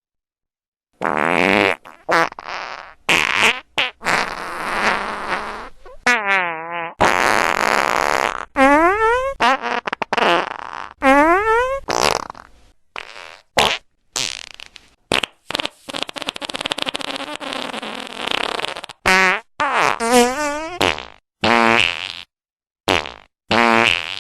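A long string of fart sound effects, one after another with short silent gaps between them. Some are pitched and wobbling, gliding up or down; others are rough, hissy blasts.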